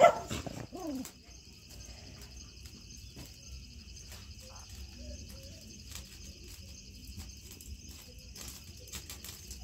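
Quiet ambience: crickets chirring steadily, with faint scattered crackles from the wood fire under the pan.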